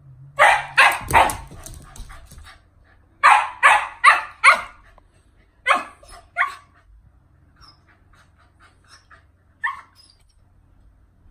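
Siberian husky puppy barking in quick runs, three barks, then four, then two, followed by one short, thin yip near the end: excited play barking during the zoomies.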